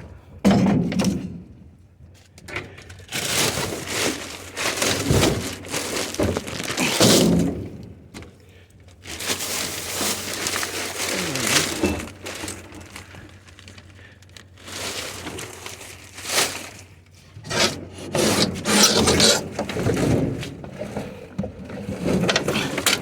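Irregular knocks, thuds and scraping as junk and scrap are shifted and dragged around by hand.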